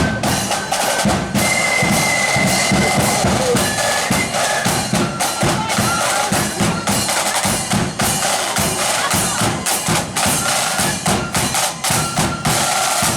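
Marching flute band playing a tune: high flute melody over a steady beat of bass drum and snare drums.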